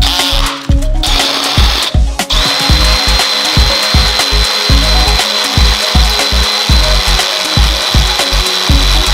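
Power drill turning a 7/16-inch bit into the engine to make a hole for a 1/4-inch NPT tap: a few short runs in the first two seconds, then a steady high whine from about two seconds in. Background music with a steady beat plays underneath.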